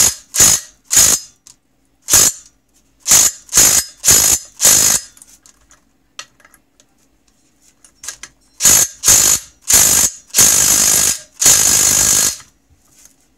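Cordless impact wrench hammering on a 16 mm engine-mount bolt in a series of short trigger bursts, a pause, then more bursts ending in two longer runs of about a second each. The bolt does not break loose and will need a breaker bar.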